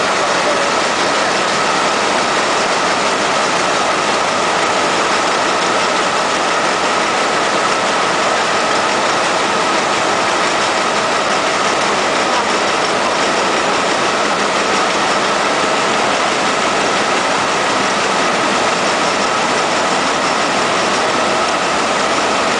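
YITAI velvet tape needle loom running at speed: a steady, unbroken mechanical noise with a constant high tone through it.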